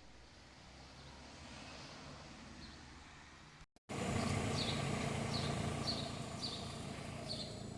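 Outdoor background noise with a low hum. After a sudden cut about halfway through, it grows louder and a short, high, falling chirp repeats about twice a second.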